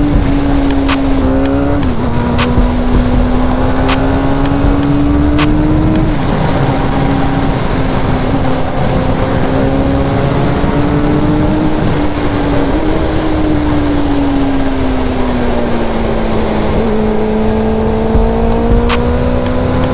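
Suzuki GSX-R600 sport bike's inline-four engine running at steady road speed. Its note climbs slowly and drops quickly a few times as the revs change, under a low rush of wind noise.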